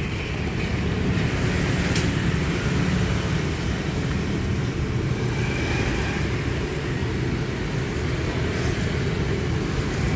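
Steady low rumble of road traffic passing the stall, with a short click about two seconds in.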